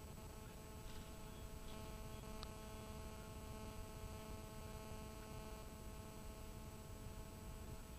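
Steady low rumble and faint electrical hum inside a fast-moving vehicle, with a few faint ticks in the first few seconds.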